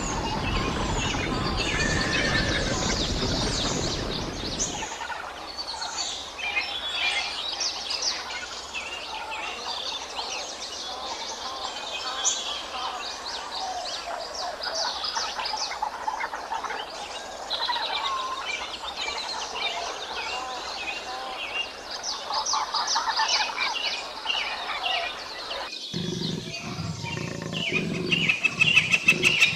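A herd of zebras running, their hooves making a loud rushing noise for the first few seconds. Then many small birds chirp and call for a long stretch. A low rumbling sound starts abruptly near the end.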